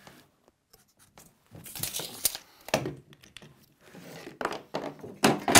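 Tools being handled on a cement board laid on the floor: short scrapes and rustles with a few light knocks, coming in separate bursts after a quiet start, the loudest near the end.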